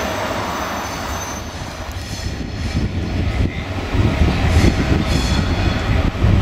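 A train passing on the rails: a steady rumble of wheels with thin, high squealing tones. The rumble grows louder and more uneven in the second half.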